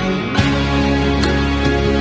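Instrumental music with plucked strings and sharp hits at a fairly regular beat.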